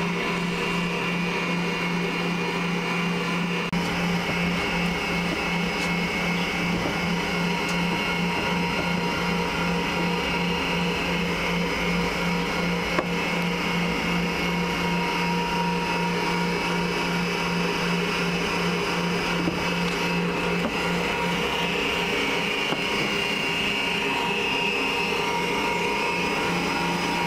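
Electric stand mixer running steadily at one speed, its motor humming at a constant pitch as it beats cream in a stainless steel bowl.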